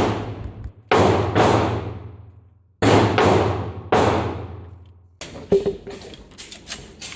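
Pistol fired about six times in the first four seconds, in singles and quick pairs, each shot with a long echoing decay. Lighter clicks and knocks follow.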